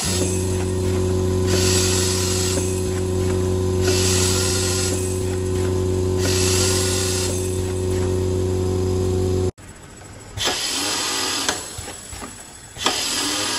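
Automatic auger powder filling machine running: a steady motor hum with a burst of hissing whir repeating about every second and a half, in time with the filling cycle. The hum cuts off abruptly about two-thirds of the way through, leaving only the recurring bursts.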